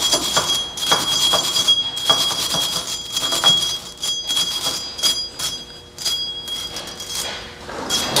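A new cast-iron brake rotor ringing on the rear hub as it is handled and turned: a steady high metallic ring that stops shortly before the end, over rapid irregular scraping and clicking of metal on metal.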